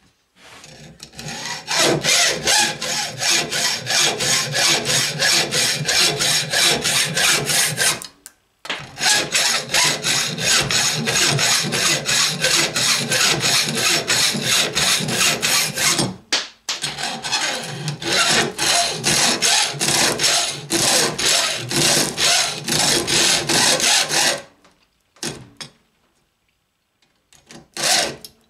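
Hand hacksaw sawing through an old corn knife with quick, even back-and-forth strokes. It runs in three long stretches, with short breaks about 8 and 16 seconds in, stops about 24 seconds in, and makes a few more strokes near the end.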